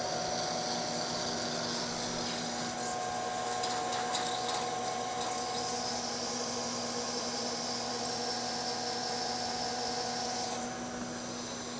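Lathe spindle running with a steady hum while the turning tool takes a heavy pass along a metal bar, with a hiss of cutting and chip curling over it. The cutting hiss stops near the end while the spindle hum carries on.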